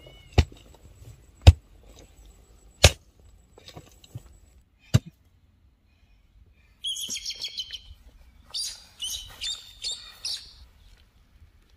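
A digging hoe striking earth four times in the first five seconds, sharp thuds about a second apart, the second one the loudest. Then birds chirping in quick runs through the second half.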